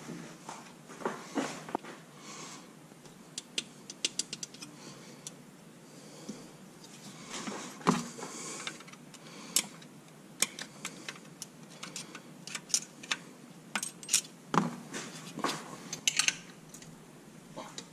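Scattered metal clicks and clinks of a wrench and small parts against the aluminium case of a Yamaha YXZ1000 transmission during teardown, with a quick run of clicks a few seconds in.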